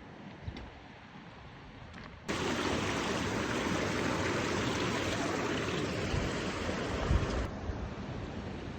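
Quiet outdoor background with a few faint clicks, then a steady loud rushing noise that cuts in abruptly about two seconds in and runs on, with a few low thumps near the end.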